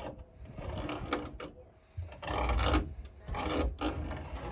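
A saw cutting through a wooden board in repeated strokes about a second apart, each stroke a short rasping burst. It is cutting the traced toilet hole out of the outhouse seat base.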